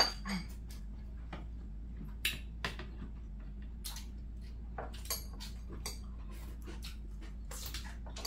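Chopsticks clicking and clinking against glass and ceramic bowls and plates as two people pick up food, in scattered light taps with a sharper clink at the start. A steady low hum runs underneath.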